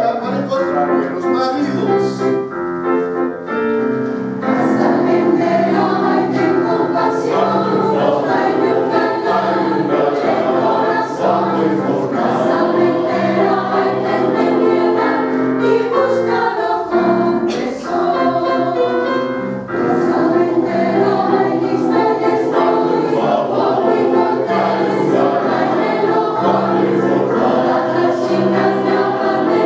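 Mixed choir of men's and women's voices singing in parts, holding long notes, with piano accompaniment. There is a short break between phrases about two-thirds of the way through.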